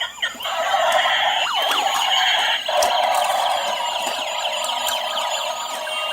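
Several battery-powered toy police and emergency vehicles sounding their electronic sirens together, a dense overlapping wail. It dips briefly a little under three seconds in, then carries on.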